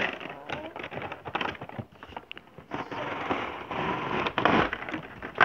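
Crackling, rustling handling noise close to the microphone: quick clicks at first, then a thicker stretch of rustling and scraping from about the middle.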